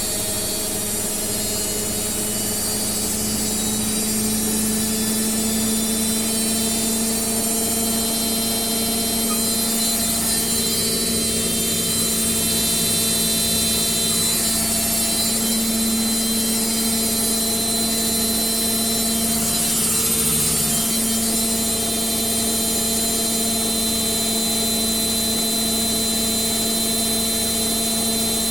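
Hotpoint Indesit washing machine on its spin cycle, the drum and motor running steadily at speed with a constant whine.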